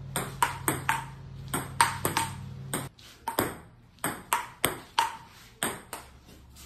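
Table-tennis ball clicking off the table and paddle in a fast rally, about two to three sharp hits a second. Under the first three seconds runs a steady low hum that then stops.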